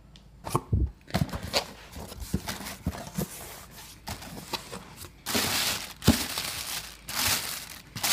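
Cardboard case of bubble gum balls being opened by hand: box flaps rubbing and knocking, and the plastic liner bag crinkling as it is pulled open. The rustling is irregular, with louder stretches about five and seven seconds in.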